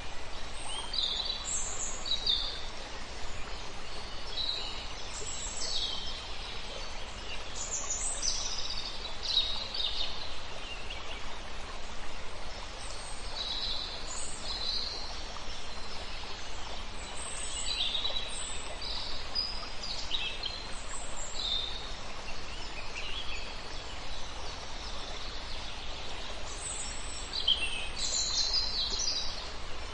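Many small birds chirping and calling, short high chirps scattered throughout, over the steady rush of a small river.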